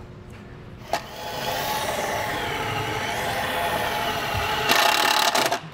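Cordless drill driving a self-tapping screw through a ground wire's ring terminal into sheet metal. After a click about a second in, the motor whines steadily, gets louder and rougher near the end as the screw seats, then stops.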